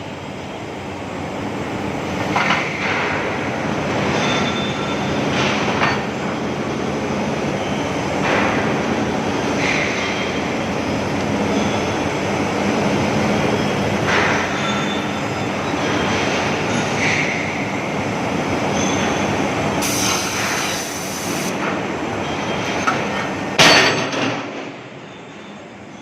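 DY-80CNC chamfering machine running and cutting a chamfer on metal: a steady grinding machine noise with short metallic squeals every few seconds. There is a brief hiss, then a sharp metallic clank near the end, after which the sound drops off.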